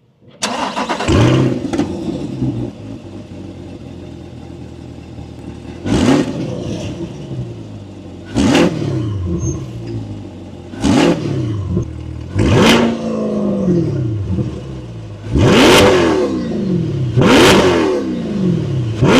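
Corvette C8's V8 through a titanium aftermarket exhaust starting up about half a second in with a loud flare, then settling to a steady idle. It is then blipped six times, each quick rev falling back to idle.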